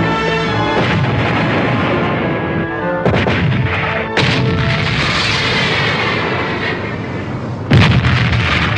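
Heavy artillery firing, a film battle sound effect: loud blasts about three and four seconds in and a louder one near the end, with dense battle noise between, over orchestral music.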